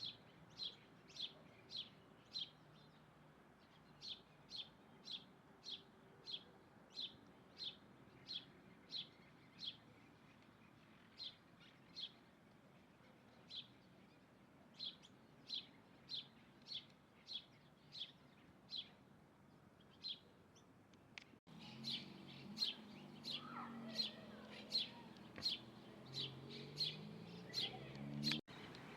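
A bird calling repeatedly, short high chirps about two a second in a long even series; about three-quarters of the way through the recording cuts and the chirps come louder, over some lower background sound.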